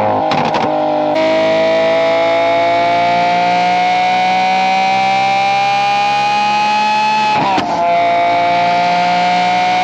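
Lamborghini Aventador SVJ's naturally aspirated V12 through a Valvetronic Designs equal-length race exhaust, heard close to the tailpipes, pulling hard on the highway. It shifts up in the first second and again about seven and a half seconds in, its pitch climbing steadily between shifts.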